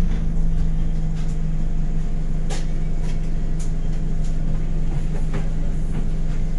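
Inside an Anadolu Isuzu Citibus: its engine running with a steady drone and a low rumble, with a few short rattles from the bus body and fittings.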